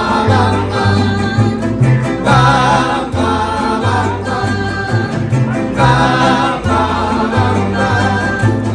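Mariachi band playing, with singing over strummed guitars, a bass line alternating between notes, and wavering held melody notes.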